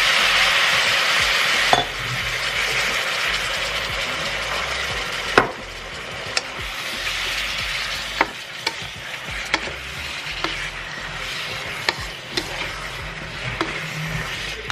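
Beef strips, peppers and onions sizzling in a hot wok. The sizzle is loudest for the first couple of seconds as poured-in water hisses into steam, then drops. After that a wooden spatula stirs the food, with about ten sharp knocks against the wok.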